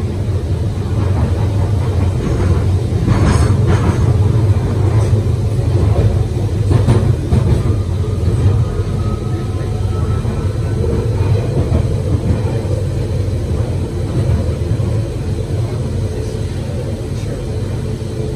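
London Underground 1992 Stock train running through the tunnel, heard from inside the carriage: a steady deep rumble of wheels on rail. A couple of sharp clicks come about three and seven seconds in, and a faint rising whine sounds near the middle.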